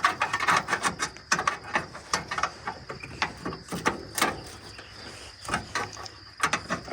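Ratchet wrench clicking in short, irregular bursts while working a tight bolt loose, only a fraction of a turn at a time.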